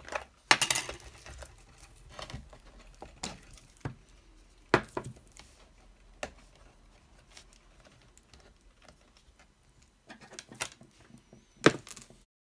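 Scattered clicks and knocks of hard plastic parts being handled while a Graupner MX-12 radio-control transmitter is taken apart. The loudest knocks come about half a second in, near the middle and near the end.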